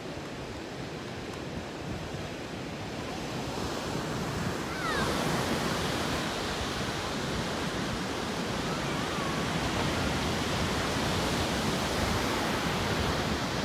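Pacific Ocean surf breaking on a sandy beach: a steady rushing wash of waves, which gets louder about five seconds in.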